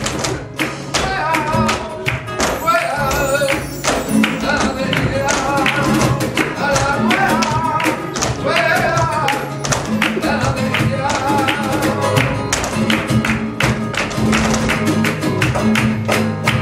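Live flamenco tangos: flamenco guitar and a singer's wavering, ornamented cante over a steady rhythm of sharp percussive strikes from hand percussion and the dancers' heeled footwork on the stage.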